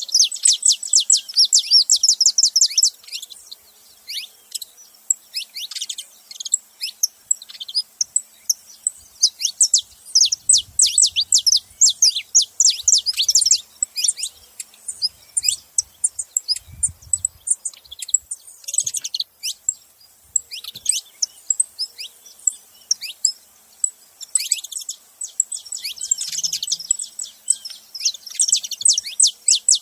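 Saffron finch chirping in quick runs of short, high, downward-sliding notes, with brief pauses between the runs.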